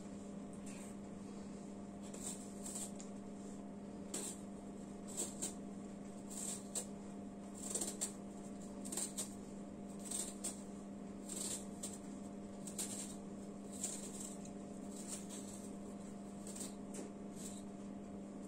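Small kitchen knife peeling the skin off a fruit in short, irregular scraping strokes, with a steady low hum underneath.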